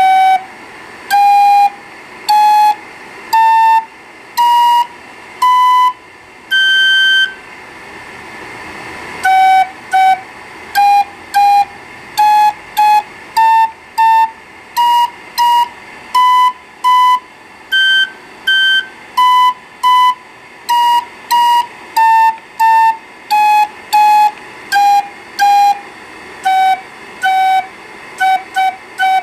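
3D-printed piccolo organ pipes on a busker organ windchest, sounded one at a time by push-button valves: short, high, pure notes stepping up and back down a scale. The first notes come about one a second, rising, with one note higher than the rest; after a pause the notes come quicker, often two on each pitch, running up and down the scale repeatedly over a steady background hiss.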